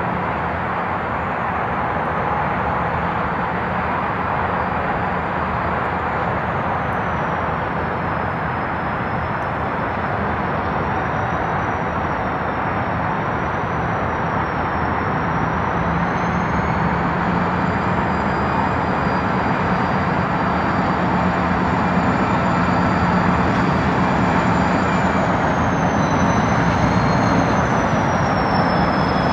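Diesel road-switcher locomotive running as it pulls a cut of freight cars slowly through the yard, with the steady rolling rumble of the cars and a faint high squeal that wavers up and down. It grows a little louder near the end.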